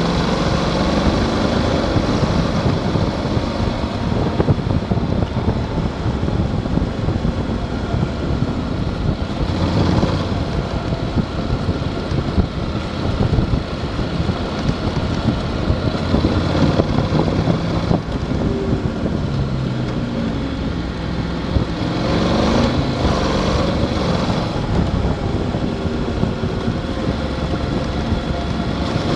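Motorcycle engine running at road speed with wind rushing over the microphone. The engine note rises and falls a few times with the throttle.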